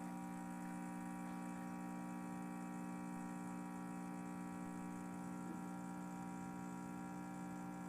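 Gaggia Classic espresso machine's vibratory pump running with a steady buzzing hum as a shot brews through the double-shot pressurized filter basket. It cuts off abruptly at the very end.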